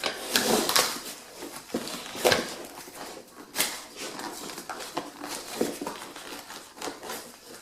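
Handling noise of unpacking: irregular rustles, knocks and clatters as packaging and mill parts are moved about, with the sharpest knocks about two and three and a half seconds in.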